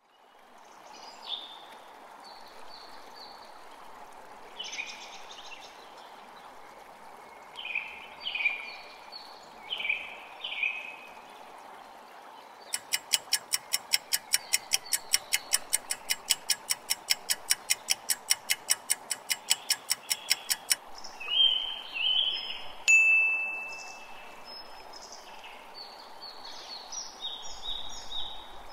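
Birdsong of short repeated chirps over a steady rushing background, with a quiz countdown clock ticking about five times a second for some eight seconds in the middle. A brief high ringing tone sounds soon after the ticking stops.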